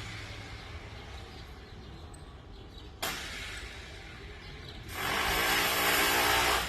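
Electric rotary hammer (martelete) hammering: it starts suddenly about three seconds in at a moderate level, then from about five seconds in gives a louder run of fast, even blows that stops sharply near the end.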